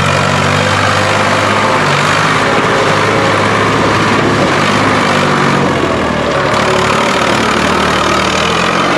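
Tractor engine running steadily close by, its speed wavering slightly now and then.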